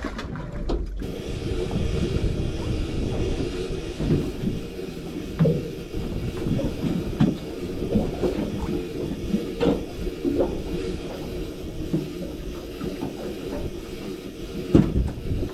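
Steady mechanical rumble of a boat's running motor, with scattered knocks and clatter on board and a sharper knock near the end.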